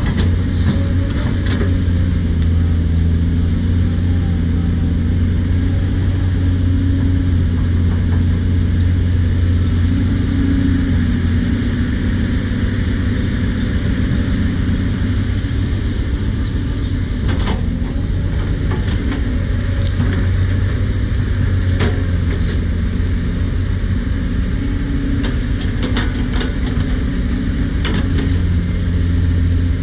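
Cat 320D L hydraulic excavator's diesel engine running steadily under load, its pitch shifting slightly as the arm swings and digs. Now and then there are sharp knocks.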